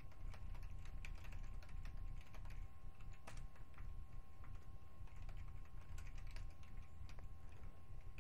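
Typing on a computer keyboard: irregular keystroke clicks over a steady low hum and two faint steady tones.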